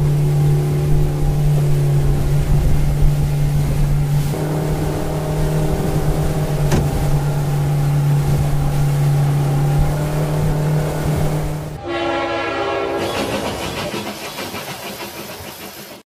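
Small battery-powered toy motor humming steadily. About twelve seconds in it changes to a buzzier, rapidly pulsing whir.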